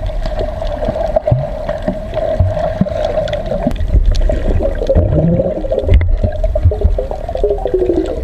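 Muffled underwater sound picked up by a camera below the surface: water moving, bubbling and gurgling over a steady low rumble, with a few short low groan-like sounds and knocks.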